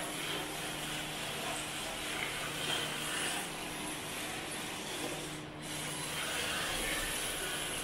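Tyres of a rear-wheel-drive MST RC drift car sliding and scraping across a concrete floor as the car drifts, a steady rough hiss.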